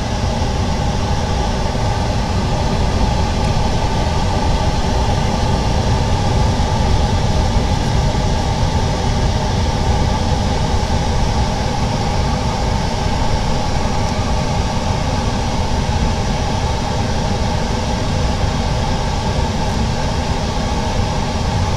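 Steady mechanical drone of running workshop machinery, a low rumble with a hiss and a faint steady hum over it, holding level without a break.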